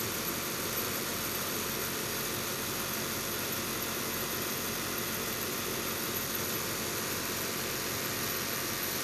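Jaki JR8700 industrial sewing machine running steadily, stitching a strip of material fed through by hand.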